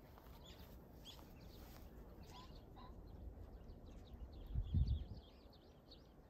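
Small birds chirping repeatedly in short calls over a low outdoor rumble, with a louder low thud about four and a half seconds in.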